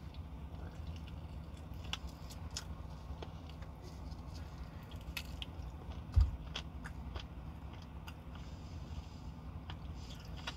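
Close-miked chewing and mouth sounds of a person eating fried chicken, with small wet clicks and smacks, over a low steady hum. A single dull thump about six seconds in.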